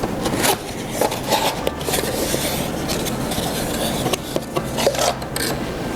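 Packaging being unpacked by hand: continuous rubbing and scraping as the knife's box is slid and pulled out of its wrapping, with a few small knocks.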